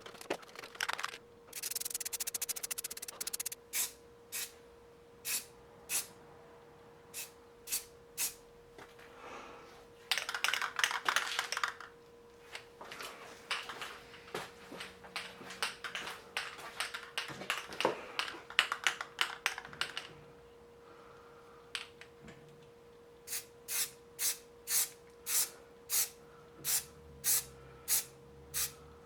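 Aerosol spray-paint can spraying in hissing bursts: a few longer sprays, then a quick run of short bursts about two a second near the end, over a steady faint hum.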